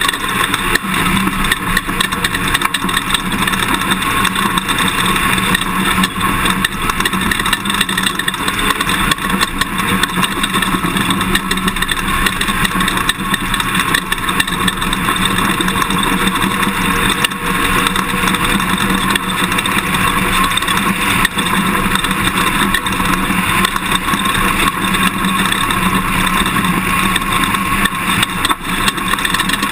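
Toyota Tundra pickup driving a desert race course at speed: a steady loud rush of engine and road noise with many small rattles and knocks.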